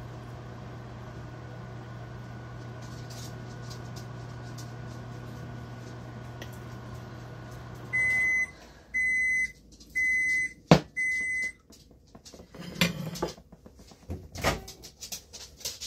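Microwave oven running with a steady hum while heating cheese on a baked potato, stopping about eight seconds in, then beeping four times, about once a second, at the end of its cycle. A sharp click comes during the beeps, followed by a few knocks and clatter.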